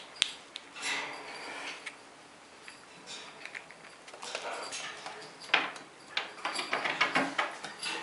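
Irregular small clicks, crunches and scratches from a pet black squirrel nibbling a biscuit and then scurrying on a wooden floor, sparse at first and busier in the second half.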